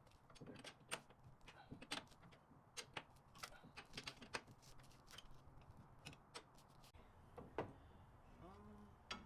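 Irregular sharp metallic clicks and taps of hand tools working on a truck's suspension, a couple of dozen scattered through the stretch with no steady rhythm.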